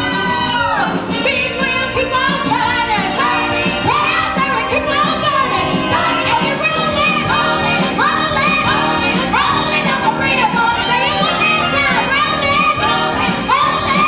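Women singing a 1960s girl-group style song over a band, with short sung phrases that scoop up into each note.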